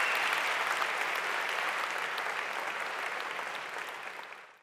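Audience applauding, slowly dying down and fading out near the end.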